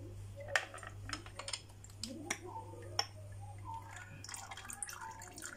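Light metallic clicks and taps of a T-handle socket wrench working the bolts of a motorcycle oil filter cover, a handful of sharp ones over the first three seconds, over a low steady hum.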